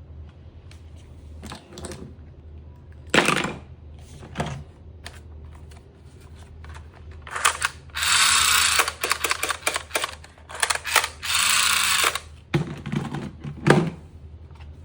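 Toy dart blaster being handled and tested: a run of sharp plastic clicks and clacks, with two hissing bursts about a second long near the middle.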